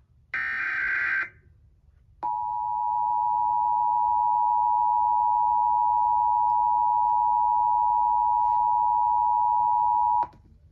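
Emergency Alert System header data burst, a short harsh digital screech, followed about a second later by the EAS attention signal: two steady tones sounding together, held for about eight seconds and cutting off suddenly. It announces the start of a required monthly EAS test.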